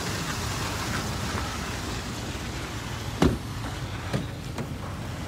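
A car door being worked: a sharp knock about three seconds in, then a lighter latch click a second later, over steady background noise.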